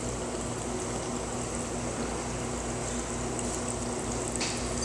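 Steady background hiss and hum with a faint constant tone underneath; no distinct clicks from the knife stand out.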